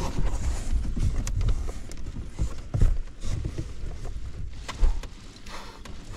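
A large cardboard shipping box being handled and opened, heard from inside the box: dull thuds, rubbing and scraping of the cardboard, with sharper knocks about three seconds in and near five seconds.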